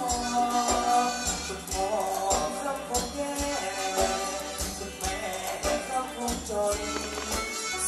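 Live band playing Thai ramwong dance music, with a steady drum beat and busy percussion under the melody.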